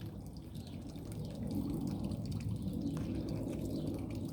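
Water trickling and dripping steadily.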